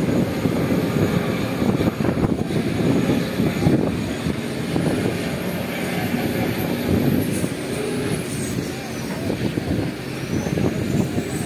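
Engines of fishing boats running as the boats motor out of harbour, a steady low drone.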